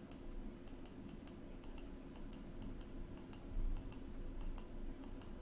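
Faint, rapid light clicking, about four clicks a second and not quite even, over a low steady hum, with a soft low thump about three and a half seconds in.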